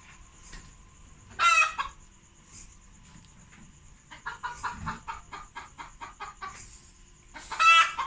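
Farm animals calling: two loud, wavering calls about six seconds apart, with a quick run of short clucking notes between them.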